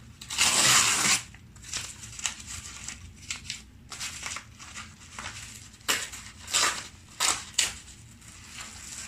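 Packaging crinkling and crackling as it is unwrapped and handled, with a long rustle in the first second, then scattered crackles and a few sharp clicks.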